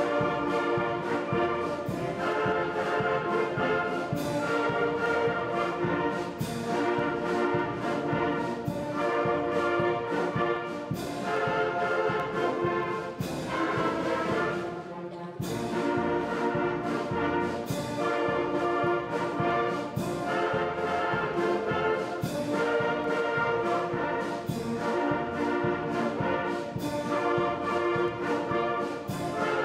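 Middle school concert band playing a march-style piece, clarinets and brass together, with a short break about halfway through before the music picks up again.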